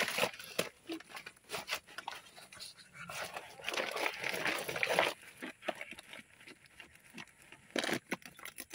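Whelping mother dog panting, with irregular rustling and small clicks throughout.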